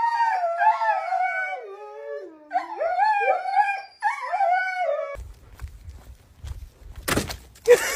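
Huskies howling in long, wavering calls that slide in pitch, dipping low in the middle, for about five seconds. Then the howling stops and a low rumbling noise follows, with a loud burst of noise about seven seconds in.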